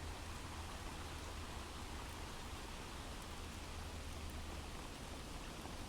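Steady background rain, a recorded rain ambience, with a low hum underneath.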